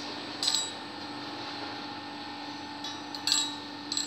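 A few light metallic clinks as a small aluminium engine part is handled against a perforated steel bench, three in all, over a steady hum.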